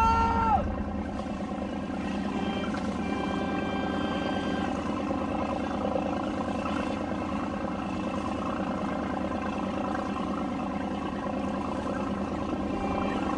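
Boat motors running steadily as a houseboat and other parade boats cruise by on the water. A wailing, siren-like tone cuts off about half a second in.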